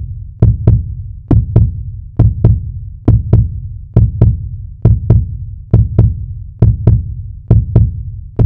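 Electronic intro beat: deep strikes in pairs like a heartbeat, about one pair a second, each with a short low ring after it.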